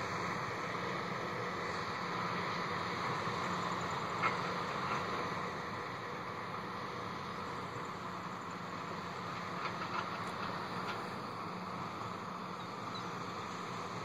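Steady drone of farm machinery engines, a beet truck and a tractor-drawn sugar beet harvester working the field, with a couple of faint knocks.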